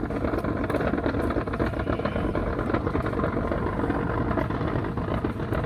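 Small engine of a well-digging winch running steadily while hauling a sand bucket up the shaft.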